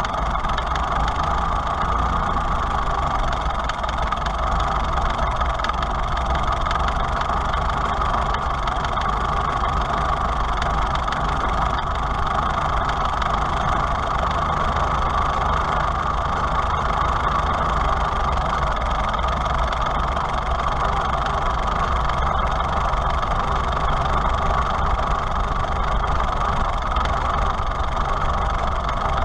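Farmall H tractor's four-cylinder gasoline engine idling steadily, heard close to its freshly reinstalled carburetor.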